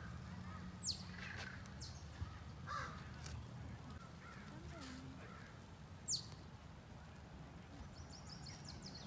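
Crows cawing a few times in the first three seconds, with sharp high calls about a second in and again about six seconds in, over a steady low hum.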